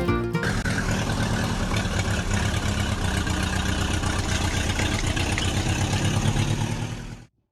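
A motor running steadily with a fast, even pulse, cutting off suddenly near the end. Music stops about half a second in.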